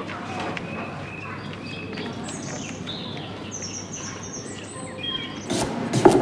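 Small birds singing, a run of short high chirps and trills over a soft outdoor hush. Near the end it gives way to a couple of sharp chops of a chef's knife through a green vegetable onto a wooden cutting board, and the second chop is the loudest sound.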